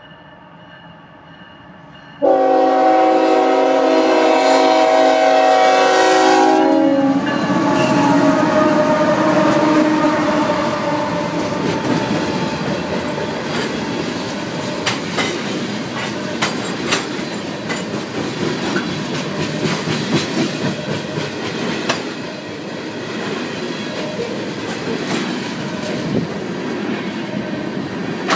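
Freight train's locomotive horn sounding one long blast of several tones at once, starting about two seconds in, blown for the grade crossing as the train approaches. The diesel locomotives then rumble past, and a long string of tank cars follows with wheels clicking over the rail joints.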